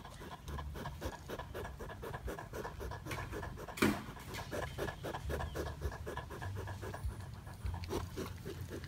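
Porcupine chewing leafy greens: quick, crisp crunching strokes, several a second, with one louder sharp crack about four seconds in.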